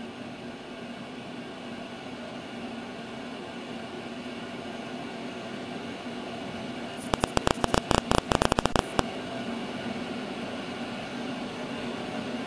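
Steady hum and hiss of background noise. About seven seconds in, a rapid run of loud sharp clicks lasts about two seconds.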